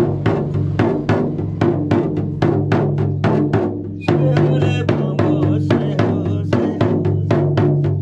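Handled shaman's frame drum with a hide head, beaten with a curved stick in a steady beat of about three strokes a second, each stroke ringing with a deep booming tone.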